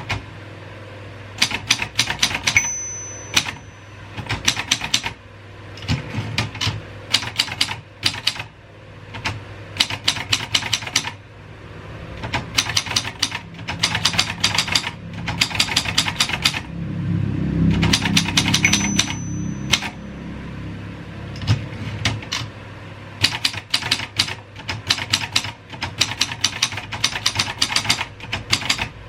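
Royal 202 typewriter being typed on: runs of quick key strikes broken by short pauses. A short high ring sounds twice, typical of the margin bell near the end of a line.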